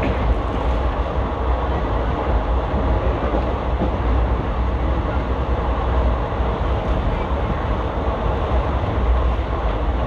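Passenger train running on the rails, heard from an ICF coach: a steady rumble of wheels and track, strongest low down.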